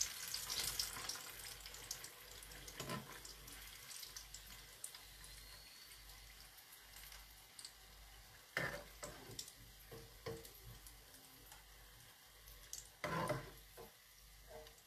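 Hot frying oil sizzling faintly and steadily in a deep-fry pan, with a few short clatters of kitchenware about three seconds in, near nine seconds and near thirteen seconds.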